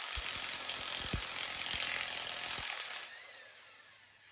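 Corded electric impact wrench hammering on the flywheel gland nut of a VW Beetle 1600cc engine. It stops sharply about three seconds in and winds down with a short falling whine.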